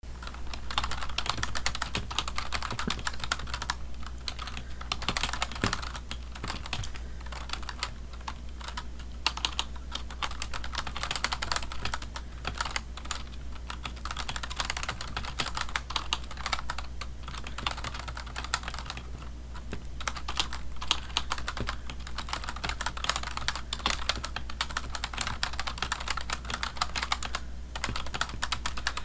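Computer keyboard being typed on: rapid key clicks in continuous runs, broken by a few brief pauses, over a steady low hum.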